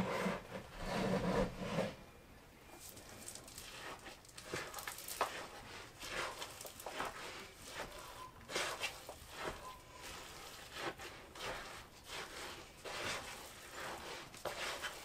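Thick cookie dough full of chocolate chips and M&M candies being stirred by hand in a mixing bowl: soft, repeated scrapes and squishes of the utensil through the stiff dough, a little louder and more continuous in the first two seconds.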